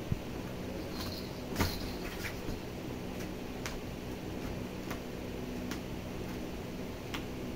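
Steady low room hum with a few light taps and clicks scattered through it, the loudest about a second and a half in.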